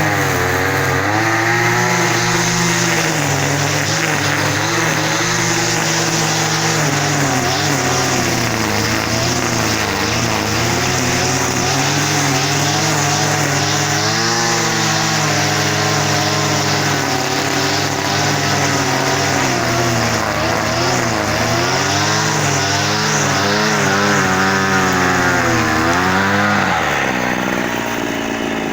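Small engine of a garden power tool running, its speed rising and falling again and again, then dropping back to a lower, steadier speed near the end.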